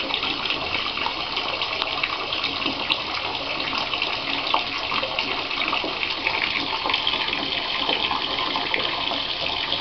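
Bathtub tap running steadily into a plugged tub, water splashing as the tub fills.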